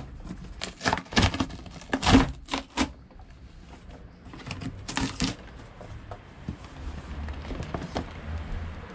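Cardboard shipping box being opened by hand: a series of short scraping, crackling noises from the cardboard and its flaps, the loudest about two seconds in, with another pair about five seconds in, then quieter handling.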